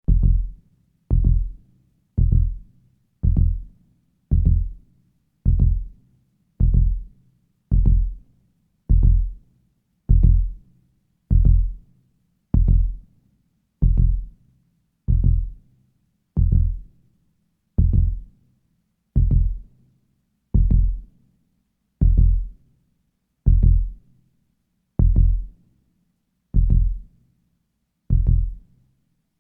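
Heartbeat sound effect slowing down: deep single thumps, about one a second at first, with gaps gradually lengthening to about one every second and a half.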